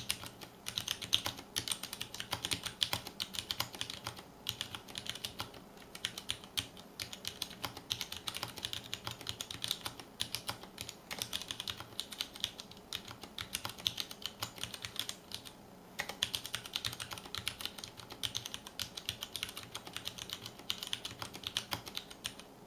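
Typing on a mechanical keyboard with Cherry MX Brown switches, a stainless steel plate, an acrylic case and thin ABS keycaps: a fast, continuous clatter of keystrokes with a few short pauses, the longest a little past halfway.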